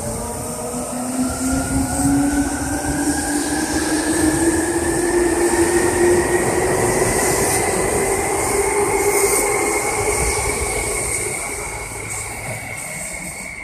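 Seibu New 2000 series electric train accelerating out of the station, its traction motors whining in several tones that climb steadily in pitch as it speeds up. The sound is loudest midway and fades near the end as the cars pass and pull away.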